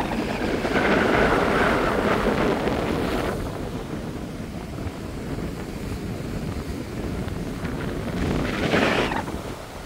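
Wind blowing across the phone's microphone over the wash of ocean surf breaking below. The noise swells louder for the first three seconds and again briefly near the end.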